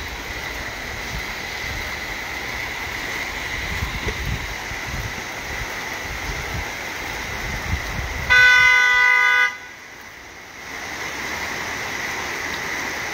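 A car horn sounds once, a single steady honk about a second long, over a steady rush of noise from the rain and the floodwater running across the road.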